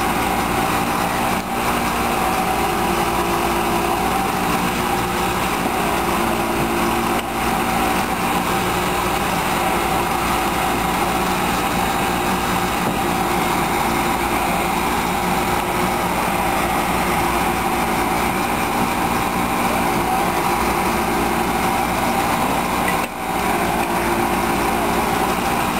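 Small gasoline engine of a hydraulic rescue-tool power unit running steadily at high speed, driving the extrication tools.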